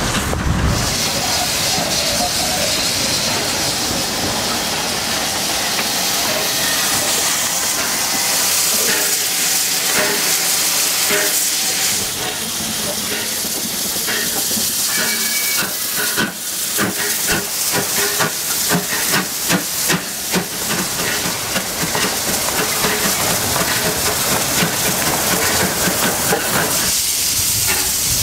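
Steam locomotive hissing steam continuously, with a run of sharp, regular exhaust beats past the middle as it works.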